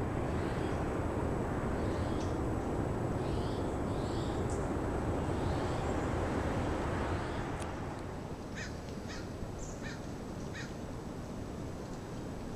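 Outdoor birdsong over a steady rushing background: scattered short bird chirps in the first half, then a quick run of about six short, harsh crow-like calls near the end. The rush eases a little just past halfway.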